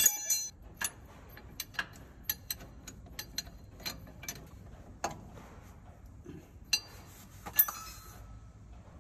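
Scattered light metallic clicks and clinks, about one or two a second, as a hand touches and turns the ball bearings and shaft ends in a gearbox housing. A brighter clink with a short ring comes right at the start and another near the end.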